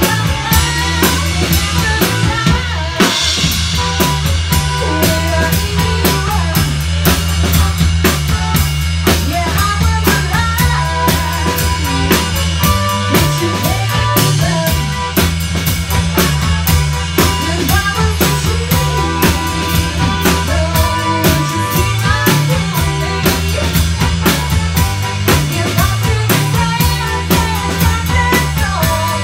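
A live rock band playing loudly: a full drum kit beating a steady rhythm over a stepping bass line and electric guitar.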